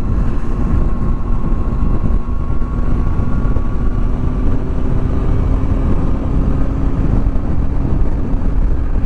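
Motorcycle at a steady cruise on an open road, heard from the rider's seat: a constant engine note under heavy wind rush on the microphone. The note firms up a little a few seconds in.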